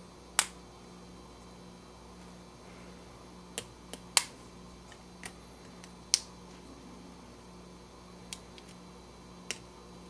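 Small sharp clicks and snaps of plastic and metal as a GoPro Hero3 Black's case is pried apart with a thin metal tool: about eight irregular clicks, the loudest a little after four seconds and about six seconds in.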